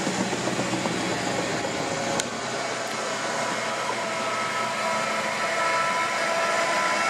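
Diesel road-rail excavators running as they travel along the track, a steady mechanical drone with a high whine that comes in about halfway through.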